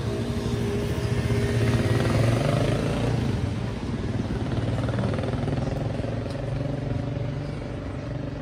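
City street traffic: a motor vehicle's engine running as it passes on the road. It grows louder over the first two seconds, dips, then swells again about five seconds in.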